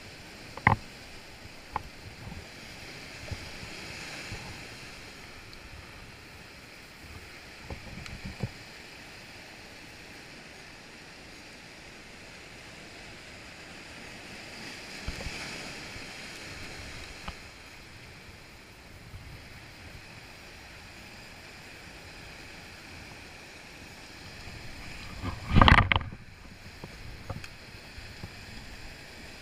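Surf washing over a rocky shore, a steady rushing that swells and fades with the waves. A few sharp clicks and knocks come from hands handling fishing line and a lure close to the microphone. Near the end there is a loud, short rumbling burst.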